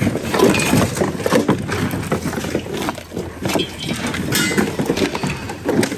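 Hands rummaging through a bin of mixed secondhand goods: plastic containers, packaging, bags and toys rustling and clattering against each other in many short, irregular knocks.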